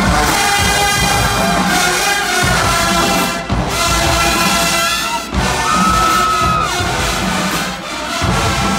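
Full college marching band playing live on the field: massed brass over a driving drumline, loud and continuous.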